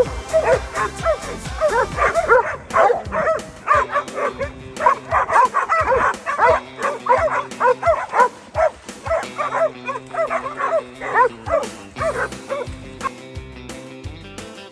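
Excited dogs barking and yipping in quick, rapid succession over background music; the barking thins out about three seconds before the end.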